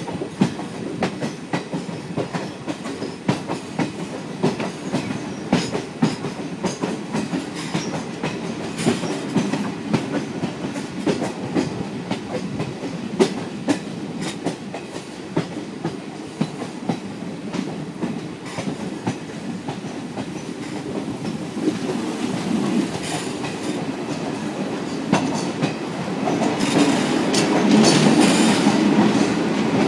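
Passenger train coach running over the track, its wheels clicking irregularly over rail joints above a steady rumble, heard through an open window. Near the end the train enters a tunnel and the rumble gets louder and fuller.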